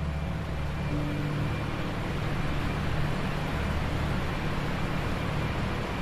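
A steady rushing noise that swells up within the first second and holds, over a low sustained drone.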